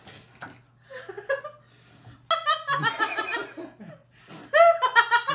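Young women laughing and giggling in short outbursts, louder about two seconds in and again near the end.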